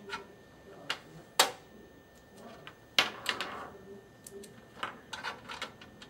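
Clicks and knocks of a coaxial cable with metal BNC connectors being handled and set down on a desk, with two sharper knocks about a second and a half and three seconds in, and lighter clicks near the end.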